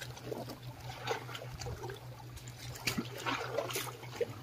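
Seawater trickling and lapping among jetty rocks, with small irregular splashes.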